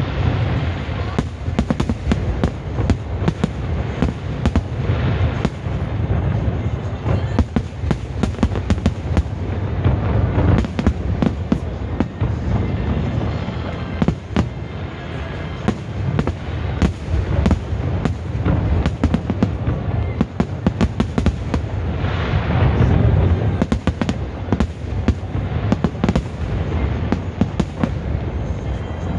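Aerial fireworks bursting in rapid succession: a dense run of sharp cracks over a continuous deep rumble.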